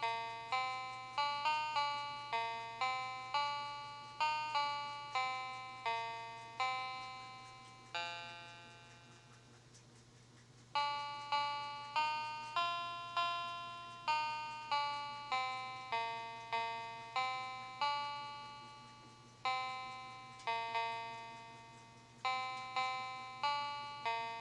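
Citizen chicken alarm clock's piano keys sounding electronic melody notes, pressed one at a time to program a tune into its memory. Each note starts sharply and fades, about one or two a second, with a pause of a couple of seconds near the middle before the notes resume.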